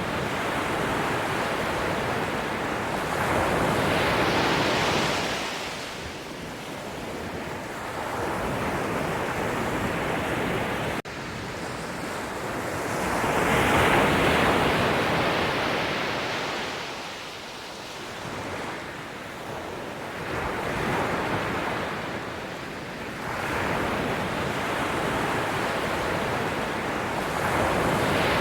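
Sea waves breaking and washing up the shore, a steady rushing surf that swells and falls back every several seconds.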